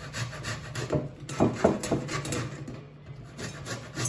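Lemon peel being grated on the fine side of a stainless steel box grater, rasping in quick strokes, about four or five a second. A few louder knocks come about a second and a half in, and the strokes go quiet briefly before picking up again near the end.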